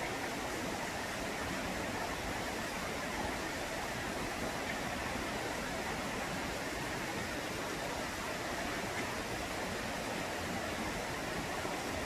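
Steady rushing of a stream's running water: an even, unbroken noise.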